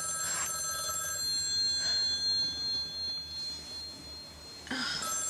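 Telephone ringing: a steady ring of several chiming tones that dies away over a few seconds, then rings again near the end.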